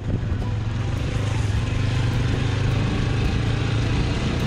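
Motorcycle engine running steadily under way, a low even hum with road and wind noise over it.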